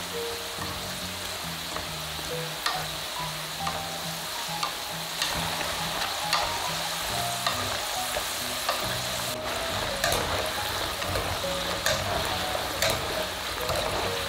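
Potatoes deep-frying in hot oil: a steady sizzle with occasional sharp clicks, over light background music.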